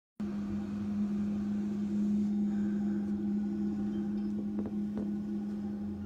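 Engine of a Case wheel loader clearing snow, running at a steady low hum, with a few faint knocks about five seconds in.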